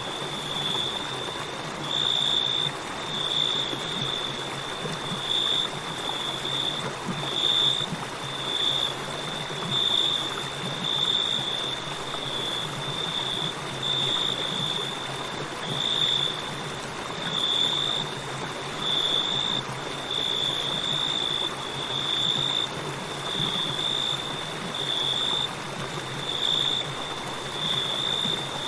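Crickets chirping in a high, steady trill that pulses about once or twice a second, over the even rush of a flowing river.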